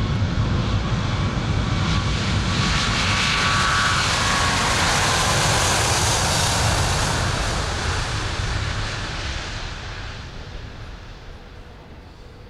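Airbus A380 airliner's four jet engines at takeoff power during its takeoff run. A loud, rushing jet roar swells to a peak a few seconds in, then fades away steadily over the last few seconds.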